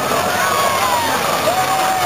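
Grandstand crowd cheering, with scattered shouts and whoops rising and falling, over the low steady running of a monster truck's engine as it crushes cars.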